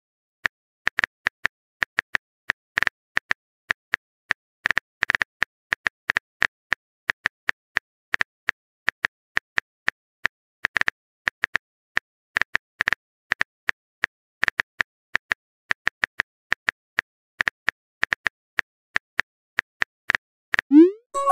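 Phone keyboard typing sound effect: irregular short taps, a few per second, as a text message is typed. Near the end, a quick rising swoosh as the message is sent.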